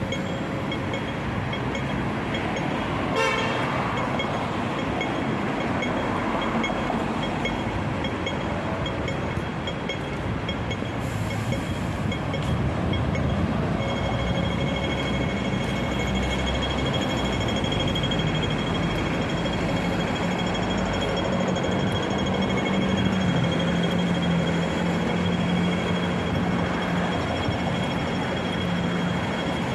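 Night street traffic noise at a road junction, with a brief toot about three seconds in. From about halfway through, a pedestrian crossing signal's rapid electronic beeping sounds steadily as the green man lights, over the low drone of a bus engine.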